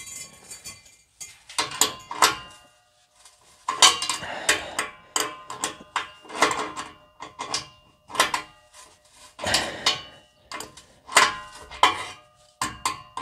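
Steel adjustable wrench clinking against the exhaust particulate sensor's nut and the exhaust pipe as it is fitted and turned: repeated sharp metallic clinks, each with a brief ring, coming at irregular intervals.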